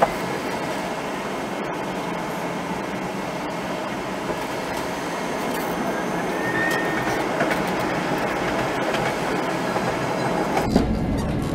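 Toden Arakawa Line tram running along its track, a steady rushing of wheels on rail with scattered clicks, played back sped up. Near the end a deeper rumble comes in.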